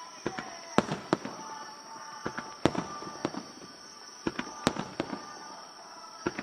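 Fireworks shells from a large starmine barrage bursting in an irregular series of sharp bangs, about ten of them, some landing close together.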